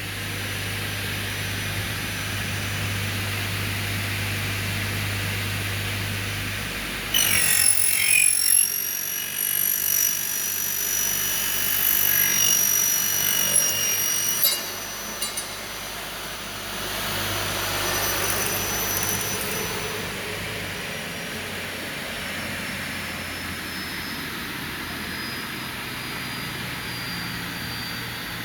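Double-head aluminium cutting saw with 420 blades running, then cutting through a thick aluminium profile: a steady motor hum, then a loud high-pitched screech of the blade in the metal from about seven seconds in to about fourteen seconds, a second, noisier stretch a few seconds later, and finally a high whine that slowly falls in pitch.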